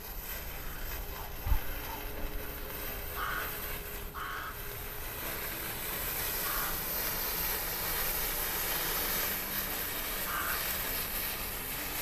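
Wooden safety matches burning, a hiss that grows louder about halfway through as the flames spread along the row of matches. A single low thump comes early on, and short calls are heard a few times.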